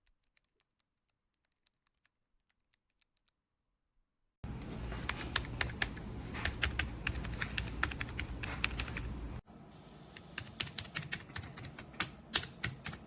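Keys of a wireless number pad being typed on: rapid, irregular key clicks. The first four seconds or so are near silence with a few faint ticks. Then the clicks start, with a low steady hum behind them for about five seconds, and they get denser near the end.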